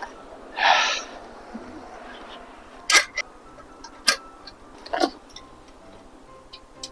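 Scattered sharp clicks and knocks from handling the bicycle and repair tools, three louder ones about a second apart, after a short hiss near the start.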